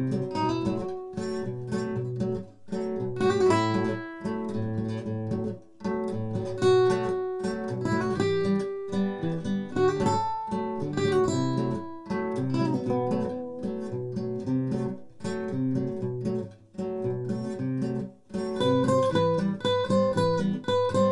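Two nylon-string classical guitars playing a plucked instrumental duet, the notes ringing over a repeating lower pattern in the bass.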